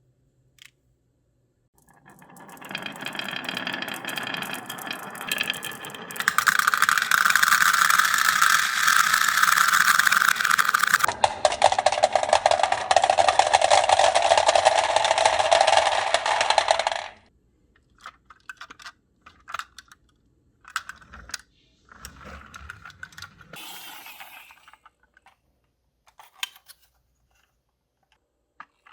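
Many marbles rolling and clattering down a marble run track in a dense, continuous rattle that grows louder and changes character twice before cutting off suddenly, followed by scattered clicks and a short final run of rolling.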